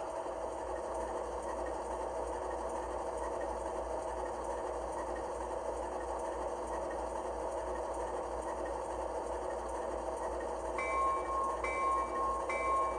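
An HO scale Athearn Genesis AC4400CW's Tsunami 2 sound decoder plays the locomotive's GE diesel idling steadily through the model's small speakers. About eleven seconds in, the locomotive bell starts ringing, with about three strokes.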